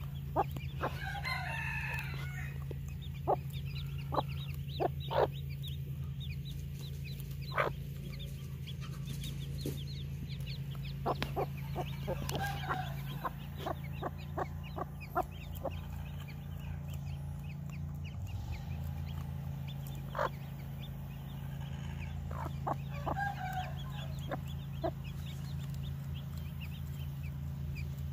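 A Hmong hen and her chicks making short clucks and peeps throughout, with three longer calls about ten seconds apart, over a steady low hum.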